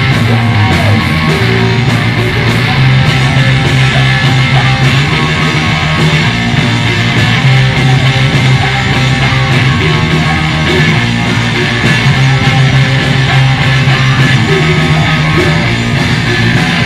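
A punk rock band playing loudly live: electric guitar and drums, with a singer's voice over them.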